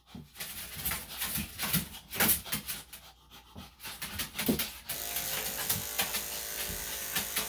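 A small dog panting and shuffling while being handled. About five seconds in, electric dog grooming clippers switch on and run with a steady hum.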